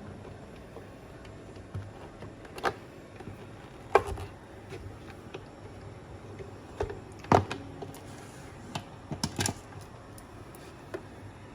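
A handful of sharp clicks and knocks, spread out over about ten seconds, from handling a vacuum sealer and its power cable. The loudest comes about four seconds in, and several close together follow near the end.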